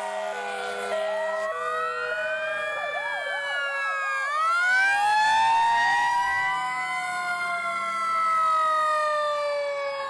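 Sirens of several fire engines and emergency vehicles passing in a slow procession, their wails overlapping at different pitches. A two-tone hi-lo alternates in the first second or so, and a fast yelp comes briefly about three seconds in.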